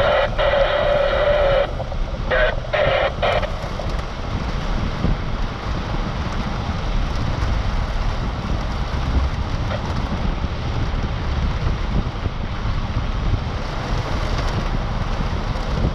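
Steady low rumble and rushing noise of a vehicle driving in the rain, with wind on the microphone. Early on, a horn-like tone sounds once for about two seconds, then three short times.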